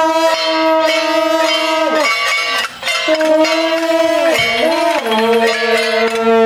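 Long brass processional horns (shaojiao) sounding long held notes, with short pitch bends between them; the last note is lower. Faint metallic percussion strikes sound underneath.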